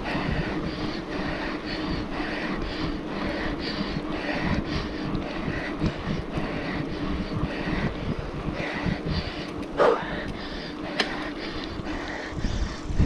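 Mountain bike rolling along an asphalt road: a steady rumble of tyres and drivetrain, with wind buffeting the camera's microphone. A short squeak about ten seconds in.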